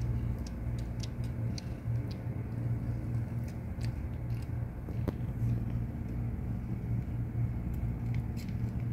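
Mother cat purring steadily, a low, continuous rumble that swells and eases with her breathing, with faint scattered clicks from newborn kittens suckling at her belly.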